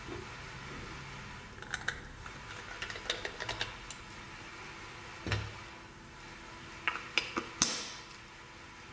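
Salt and pepper grinders being handled, giving scattered light clicks and taps, a duller knock about halfway through, and a few sharper clicks near the end, the last the loudest.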